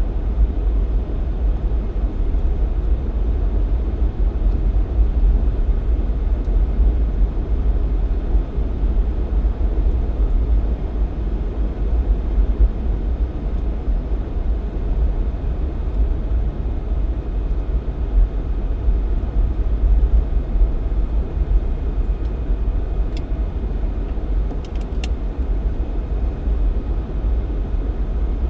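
Jeep Cherokee XJ driving on a snowy mountain highway, heard from inside the cabin: a steady low rumble of engine and tyre noise. A few faint clicks come near the end.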